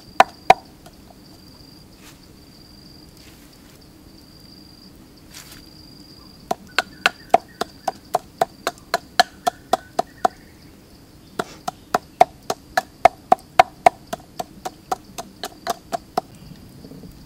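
A knife chopping on a wooden board in quick, even strokes of about three or four a second. There are a few strokes right at the start, then a long run beginning about six and a half seconds in, and another about eleven and a half seconds in, with short pauses between.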